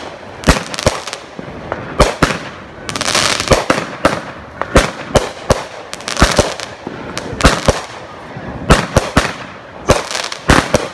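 Consumer fireworks cake firing a rapid sequence of shots: sharp bangs coming one or two a second, with a longer hissing stretch about three seconds in.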